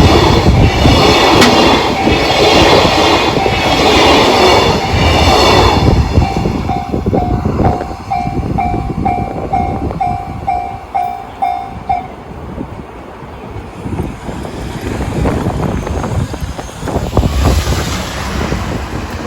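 Freight train wagons rolling over a level crossing with wheels clacking, the rumble ending about six seconds in. A Japanese level-crossing alarm (JR standard electronic tone) rings in even pulses about twice a second under it, then on its own, and stops about twelve seconds in as the crossing clears.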